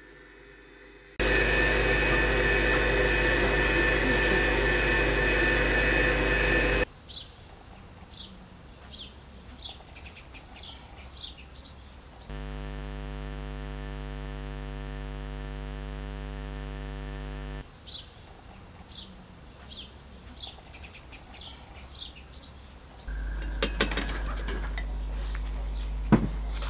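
Electric stand mixer running in three stretches, a steady motor hum, the first stretch the loudest, beating a batter in a steel bowl. Between the stretches, small birds chirp, and near the end there are a few sharp clicks.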